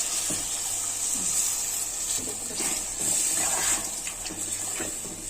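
Water being poured into a pan of frying mutton and spice masala, with a steady hiss from the pan.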